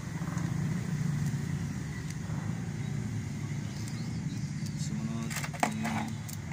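Steady low rumble, with small metallic clicks and one sharp tap about five and a half seconds in as the brass coupling of a blue charging hose is screwed onto the port of a refrigeration manifold gauge set.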